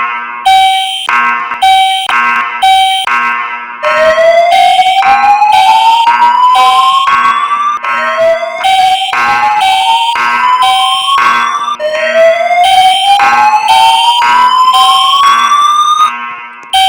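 School fire alarm system sounding a rapidly pulsing horn tone. About four seconds in, three slow rising whoop sweeps join it, each about four seconds long: the alert tone of the voice-evacuation system between its spoken announcements.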